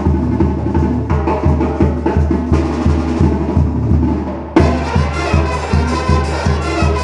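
Sinaloa-style banda playing live: tuba bass line and drums on a steady beat under brass and clarinets. About four and a half seconds in, the full band suddenly gets louder and brighter.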